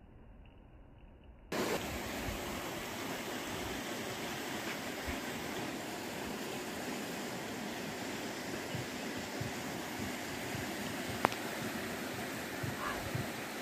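Steady rush of a shallow creek's water flowing over a riffle, starting abruptly about a second and a half in after a faint, muffled stretch. A single sharp click sounds late on.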